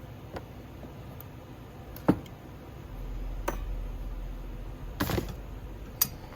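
Scattered knocks and clinks of hand tools and small metal saw parts being handled on a workbench: about five separate hits, the sharpest about two seconds in and a quick cluster near five seconds, over a low rumble in the middle.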